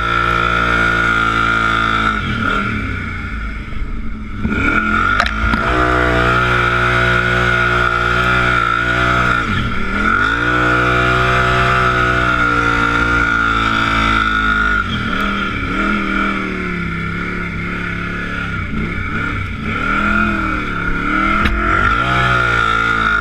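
Kawasaki Brute Force ATV's V-twin engine running under way, the revs dropping and climbing again several times as the throttle is eased off and reopened. A steady high-pitched whine runs underneath.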